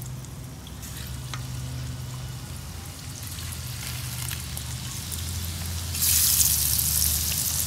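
Breadfruit pieces frying in hot oil, a steady sizzle that suddenly gets much louder about six seconds in.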